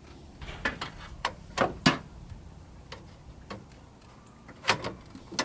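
Hand wrench working a transmission cooler line fitting on a radiator: a series of sharp metal clicks and knocks, irregular and a fraction of a second to a second apart, over a low steady hum.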